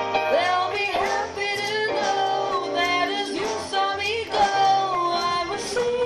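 Live big band playing with a singer at the microphone: a sung melody over held instrument chords and a moving bass line.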